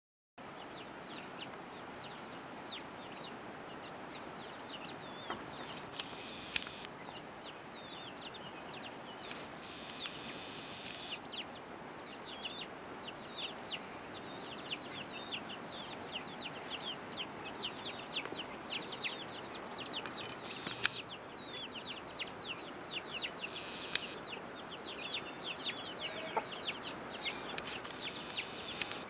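A brood of young chicks peeping continuously, many short high notes that each drop in pitch, while the Orpington hen clucks softly as they forage. A few sharp clicks stand out, the loudest about two-thirds of the way through.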